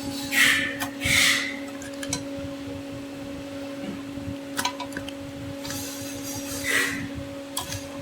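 Wire connectors being pulled off a smoke gun's circuit board: a few sharp plastic clicks and short rustles of handling. A steady electrical hum runs underneath.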